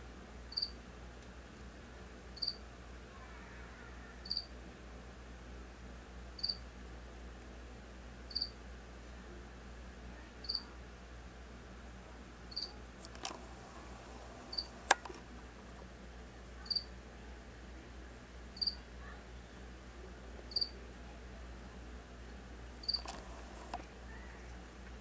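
A short, high chirp repeating evenly about every two seconds. A few sharp clicks fall in the middle of the stretch and near its end, the loudest about halfway through.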